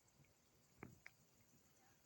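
Near silence, broken by two faint clicks about a second in.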